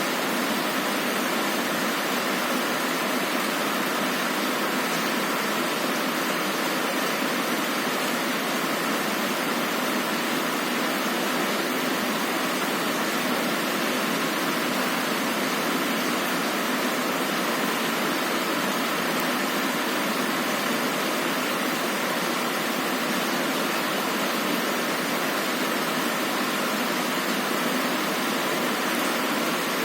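Heavy rain on a window: a steady, even hiss with no single drops standing out, and no thunder.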